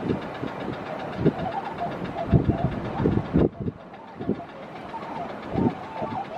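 A flock of Bewick's swans calling, many short wavering honking notes overlapping, while strong wind buffets the microphone in gusts that are the loudest sound.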